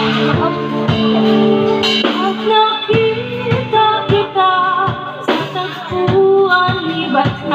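Live band playing a pop ballad: a woman singing into a microphone over guitar and a drum kit keeping a steady beat.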